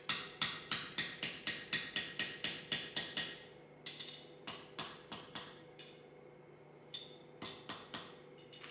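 Blacksmith's hammer striking glowing spring steel on an anvil, each blow ringing. A fast steady run of about four blows a second for the first three seconds, then shorter groups of blows with pauses between them.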